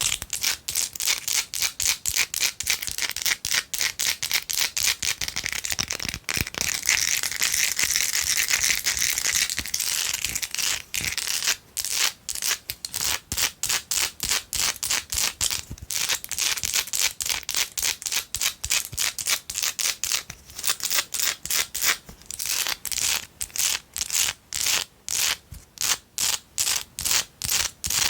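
Long fingernails tapping and scratching fast on a candle: rapid runs of sharp clicks. About a quarter of the way in there is a stretch of denser scratching, after which it settles into quick separate taps, about four or five a second.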